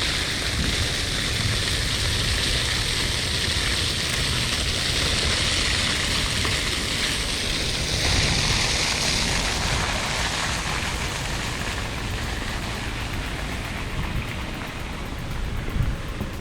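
Steady rushing and splashing of water, a continuous hiss that swells briefly about halfway through.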